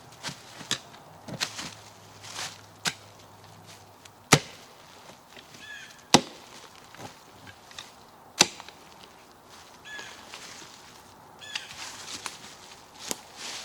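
Sharp knocks of wood on wood, three loud ones about two seconds apart with softer knocks and rustling between: old cedar logs being struck or dropped as a log bridge is pulled apart.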